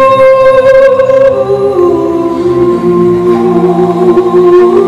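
Music with singing: a voice holds a long high note, then moves down to a lower held note about two seconds in.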